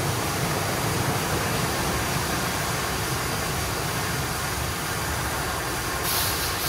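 Christ GENIUS C160 gantry car wash running: a steady low rumble of machinery under an even hiss. A short burst of louder hiss comes near the end.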